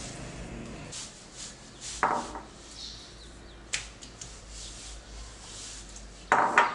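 Hands pressing and rubbing soft, oiled msemmen dough on a countertop. Two short, louder pitched sounds come about two seconds in and near the end, with a sharp click between them.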